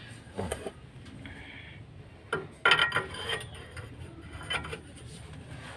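A few irregular metallic clinks and taps of hand tools against metal, with the loudest cluster about two and a half seconds in.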